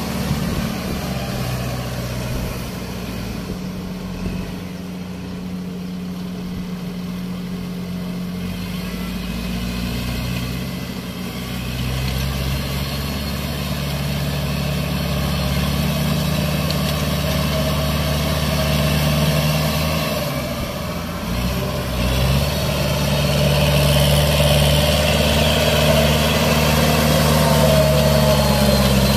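Kubota L5018 tractor's diesel engine running steadily while it pulls a rotary tiller through a wet paddy field. It grows louder over the last several seconds as the tractor draws close.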